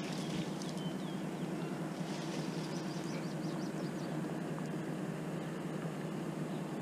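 Steady low mechanical hum outdoors, with a bird chirping a quick run of high notes about two seconds in.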